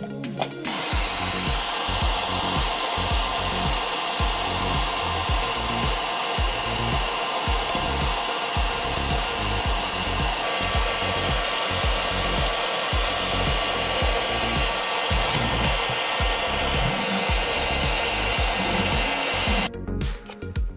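A steady, loud rushing noise like a blower or hair dryer, starting about a second in and cutting off shortly before the end, over background music with a steady beat.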